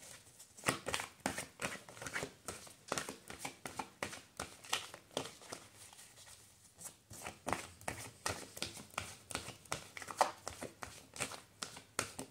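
A deck of tarot cards being shuffled in the hands: a steady run of soft card slaps and clicks, several a second, with a brief lull about six seconds in.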